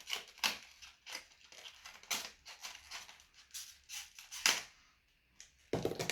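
Irregular sharp clicks and light rattling as a small brass padlock and its keys are handled, with a louder knock about four and a half seconds in and a busier clatter near the end.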